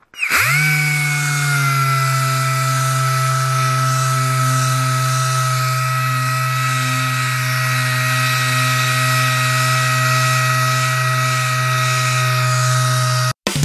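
Compressor-driven random orbital sander running against painted van bodywork, a steady whine with an airy hiss. The pitch dips briefly as it starts and settles, then holds until it cuts off sharply near the end. It is flatting the faded paint back to matte before priming.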